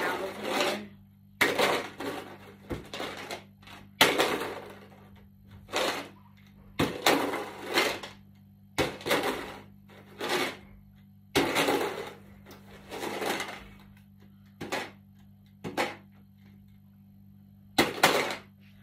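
A partly filled plastic water bottle being flipped again and again, each toss ending in a sudden clunk as it hits the carpet and topples, about one a second. Near the end a toss stays upright: a landed bottle flip.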